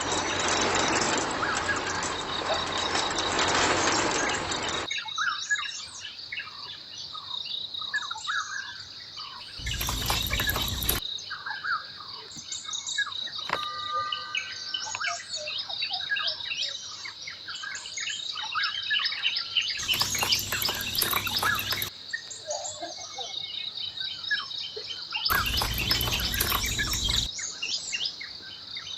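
Many small birds chirping, with a steady high insect drone underneath. A dense noise fills the first five seconds, and three short spells of broad noise break in later.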